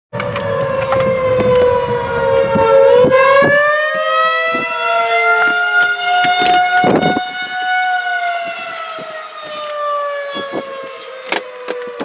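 Federal Signal 2001-SRNB outdoor warning siren sounding the attack signal, a wailing tone that rises and falls in pitch: it dips, climbs about three seconds in, then slowly falls toward the end. Scattered sharp clicks are heard through it.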